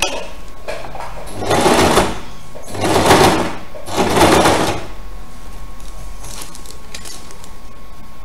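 Electric home sewing machine stitching a zipper into a bag lining in three short runs, each under a second, with brief pauses between.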